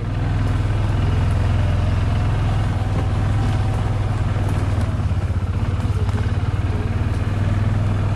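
ATV engine running at a steady, even speed while being ridden, a loud low drone with no revving.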